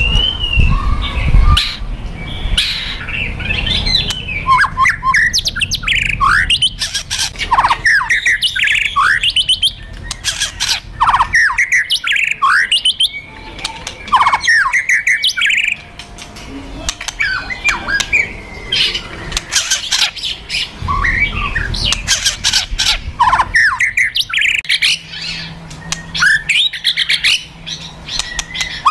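White-rumped shama (murai batu) giving its aggressive fighting calls, 'kretekan' and 'tembakan'. These are rapid crackling clicks mixed with quick up-and-down whistled sweeps, coming in repeated bursts.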